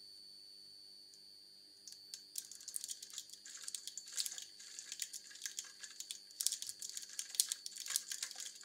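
Crumpled aluminium foil crinkling and crackling as it whirls around a steel bowl, driven by electric current fed in through copper contacts. The dense, irregular clicking and rustling starts about two seconds in.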